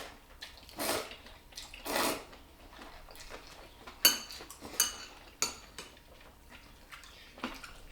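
Eating utensils clinking against dishes at a meal table: a few soft scrapes, then four sharp clinks with brief ringing from about four seconds in and one more near the end.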